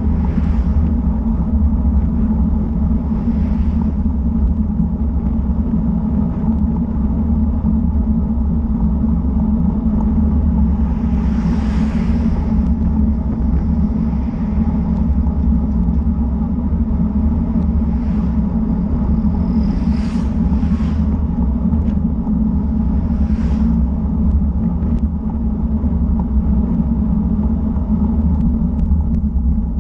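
Steady wind rumble and road noise on a bicycle-mounted action camera riding at about 40 km/h. Several passing cars swish by, most clearly about 12 seconds in and twice more after 20 seconds.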